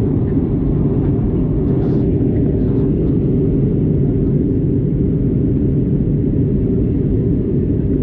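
Jet airliner cabin noise from a window seat: a steady, dense low rumble of the engines and airflow.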